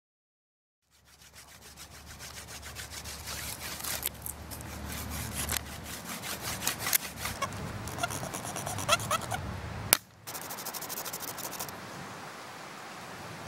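Stone scraper shaving along a dry, pith-filled hand-drill spindle in fast repeated scraping strokes, starting about a second in and growing louder. A sharp click about ten seconds in, after which the scraping goes on more evenly.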